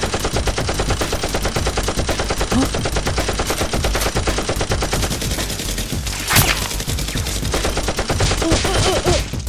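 Rapid, continuous automatic gunfire, a machine-gun sound effect laid over Nerf blasters being fired, with one louder bang about six and a half seconds in.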